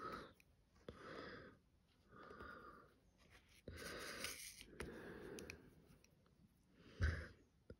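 Slow, wheezy breathing close to the microphone from a person with a cold, one soft breath a little over a second apart, with one louder, sharper breath near the end. Now and then the light click of a diamond painting drill pen tapping resin drills onto the canvas.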